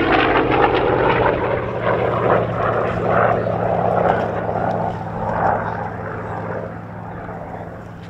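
Goodyear FG-1D Corsair's 18-cylinder Pratt & Whitney R-2800 radial engine and propeller running under power in flight, a steady drone that is loudest in the first few seconds and fades over the last few as the fighter climbs away into a loop.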